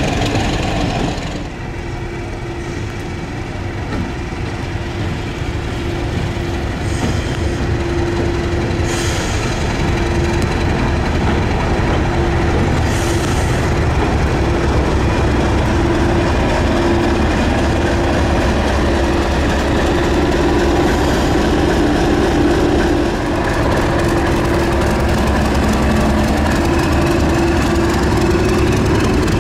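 British Rail Class 31 diesel locomotive running in under power, its English Electric V12 diesel engine a steady drone that grows slowly louder as it approaches, with the wheels running over the rails.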